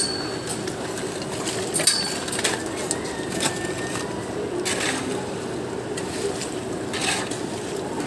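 Steady drone of a concrete boom pump truck's diesel engine running during the pour. Several short scrapes and clinks of steel shovels working wet concrete are heard over it.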